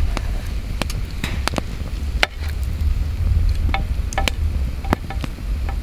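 Campfire crackling, with irregular sharp pops and snaps, the strongest about two seconds in, over a steady low rumble.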